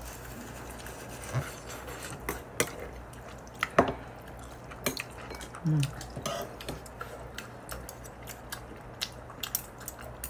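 Metal chopsticks clicking against bowls and dishes during a meal, a scatter of light sharp taps at uneven intervals.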